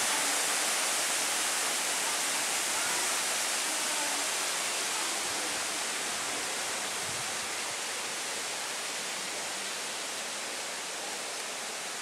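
A steady, even rushing hiss that slowly grows fainter.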